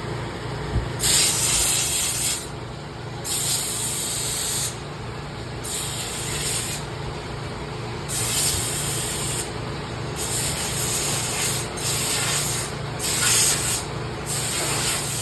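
Power sander working on log walls: its motor runs steadily, with repeated rasping passes, each about a second long, as it is pressed against the wood.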